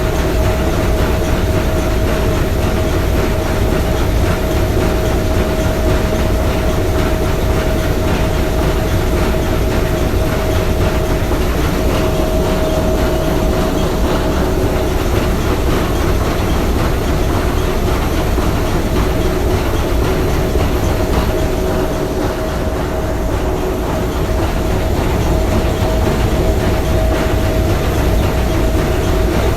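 Three-cylinder triple-expansion marine steam engine running steadily, a dense mechanical clatter and rush with a steady hum through it.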